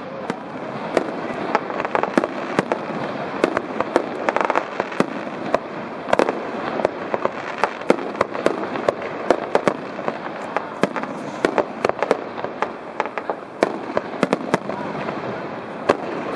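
Fireworks display: a dense, continuous run of sharp bangs and crackling pops, several a second, over a steady crackle.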